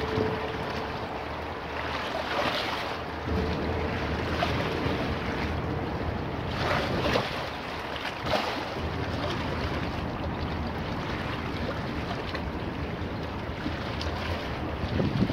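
Choppy Neva river water lapping and splashing against granite embankment steps, with a few louder splashes about two and a half, seven and eight seconds in. Wind gusts on the microphone, and a faint steady hum runs under the first few seconds.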